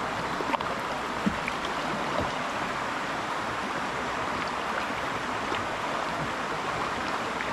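Creek water rushing over a shallow rocky ledge and riffles, a steady rushing hiss, with a few faint short ticks.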